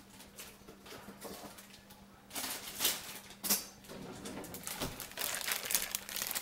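Plastic bag of pecans crinkling and rustling in irregular bursts as it is opened and handled, heaviest in the second half, over a faint steady hum.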